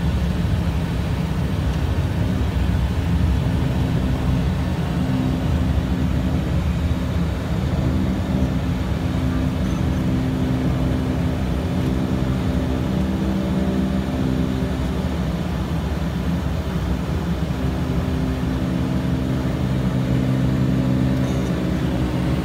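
Twin Pratt & Whitney PT6A turboprop engines of a Beechcraft 1900C running at low power while the aircraft taxis, heard inside the cockpit: a steady propeller drone with several low humming tones.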